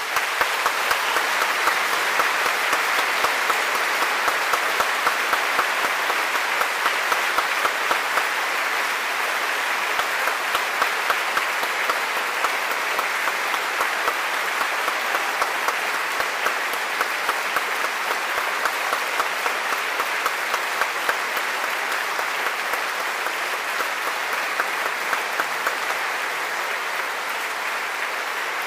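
A large audience applauding in a concert hall, steady and sustained, with louder claps falling into an even beat through much of it.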